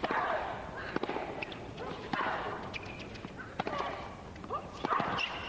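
Tennis rally: a racket hits the ball about five times, roughly once a second, each shot with a short loud grunt from the player hitting it.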